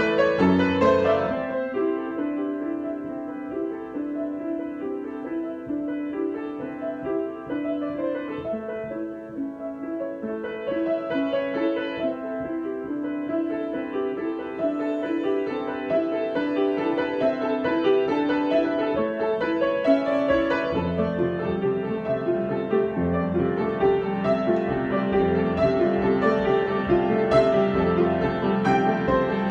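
Solo piano improvisation: a gentle run of notes in the middle register, with lower bass notes coming in about two-thirds through and the playing growing fuller and louder.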